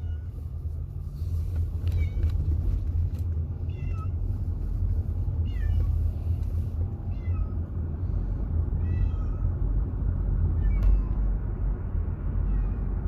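A car squeaking: short, high, bending chirps repeat about every two seconds over the low rumble of the running car.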